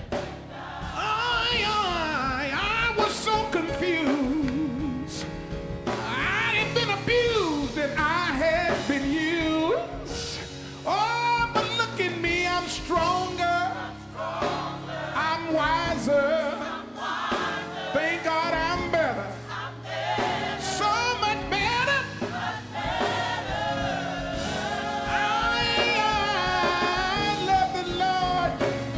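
Gospel choir singing with instrumental backing, voices rising and bending through long melismatic lines over sustained chords.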